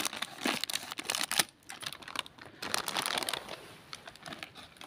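Scissors snipping through a crinkly foil snack packet, with the wrapper crackling as it is handled: a quick run of clicks and rustles, busiest in the first second and a half, then thinning out.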